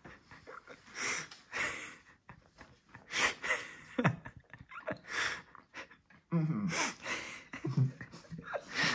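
A man breathing hard through his mouth in repeated sharp, hissing breaths, with two short groans a little after six seconds and near eight seconds. This is his reaction to the burning heat of a Carolina Reaper chilli in his mouth.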